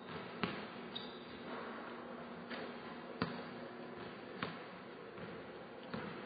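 A basketball bouncing on a hardwood gym floor: about six separate thuds at irregular spacing, the loudest about halfway through.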